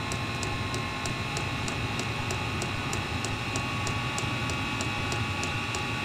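Webasto Dual Top diesel heater burning: the blower fan runs with a steady hum and whine while the fuel dosing pump clicks evenly, several times a second.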